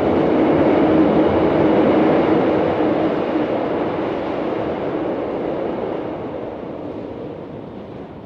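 PCC electric streetcar running along its track: a steady rumble with a hum, fading away over the last few seconds as the car moves off.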